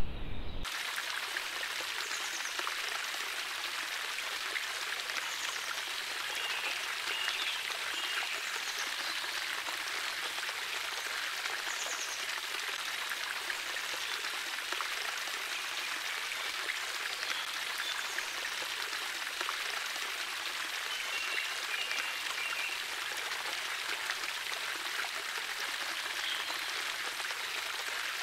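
Steady rush of running water from an ornamental pebble-bed water feature, with a few faint bird chirps now and then.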